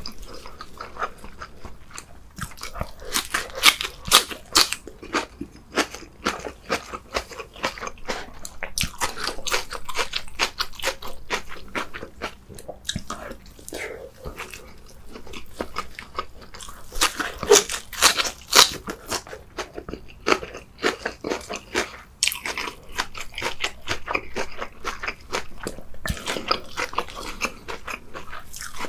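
A person chewing and crunching napa cabbage kimchi leaves close to the microphone, a dense run of crisp crunches and bites. The crunching is loudest about three to five seconds in and again around seventeen to nineteen seconds.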